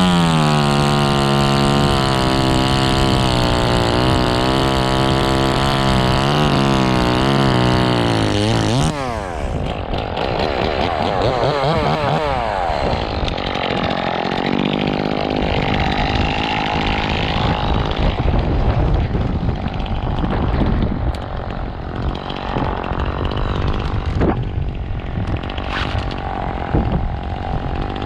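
Two-stroke chainsaw revving up sharply and held at full throttle cutting spruce for about nine seconds, its pitch wavering slightly under load, then dropping off. After that the engine runs lower and unevenly, with a few short revs.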